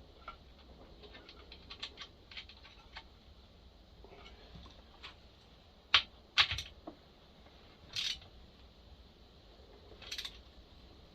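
Scattered light clicks and clinks of small metal tools and parts being handled during a spark plug thread repair on a chainsaw, with a few sharper knocks about six and eight seconds in and another near the end.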